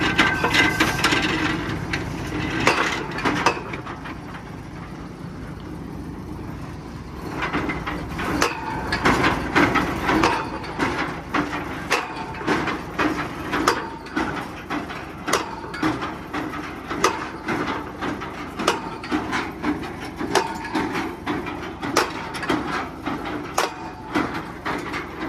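Bucyrus-Erie 22W cable tool drilling rig working, with a steady knocking a little over once a second as it lifts and drops the drilling tools, over the hum of its engine. The knocking dies down for a few seconds after the first strokes, then picks up again.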